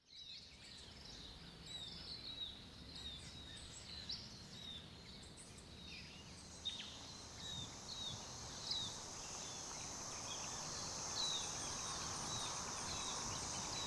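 Birds chirping and calling with short, scattered notes, faint, with a steady high-pitched insect drone joining about two thirds of the way through as the overall sound slowly grows louder.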